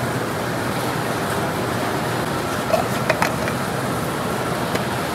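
Steady whir of shop fans, with a few light clicks about three seconds in.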